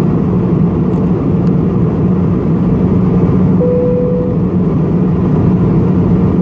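Jet airliner cabin noise in cruise flight: a loud, steady low rumble with a constant hum. A short steady tone sounds for under a second about three and a half seconds in.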